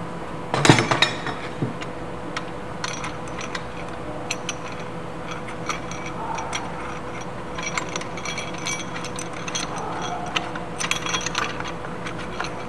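Aluminium skylight frame and metal swivel clip knocking and clicking together as they are fitted by hand: a loud clatter about half a second in, then scattered light metallic clicks and rattles in small bunches.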